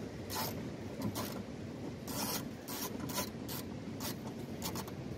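10 mm socket ratchet on an extension clicking in short, irregular bursts of strokes while loosening a window regulator mounting bolt.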